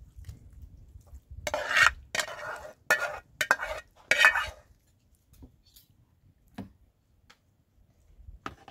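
Metal spoon scraping sauce out of a frying pan into a pot of spaghetti: a run of rough scrapes and knocks for about three seconds, then a few light clinks of the spoon.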